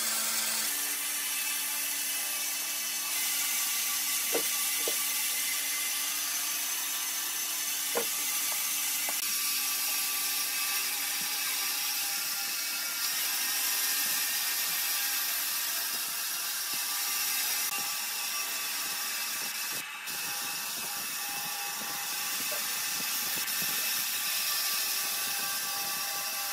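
Bandsaw running and cutting through a bark-covered log: a steady hiss over a machine hum, with a few short clicks in the first third.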